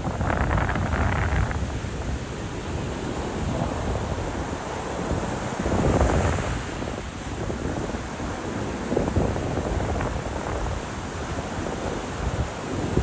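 Ocean surf washing on the beach, with wind on the microphone: a rushing noise that swells and eases, loudest about six seconds in.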